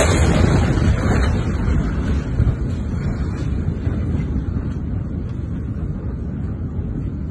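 Aftermath of a massive explosion: a loud, low rumble with the blast wind buffeting the microphone, slowly dying away.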